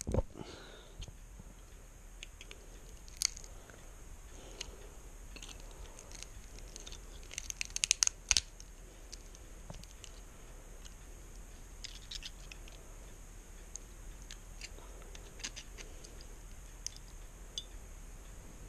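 Needle-nose pliers gripping, bending and snipping the thin sterling silver shell of a weighted candle holder: scattered sharp metal clicks and snips, with a quick run of loud ones about eight seconds in.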